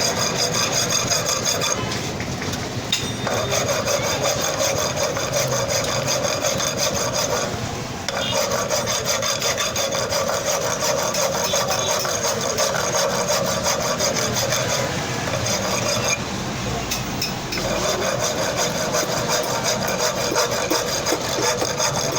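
A hand file rasping in steady, continuous strokes on a part of the motorcycle hub, with short pauses about 2, 8 and 16 seconds in.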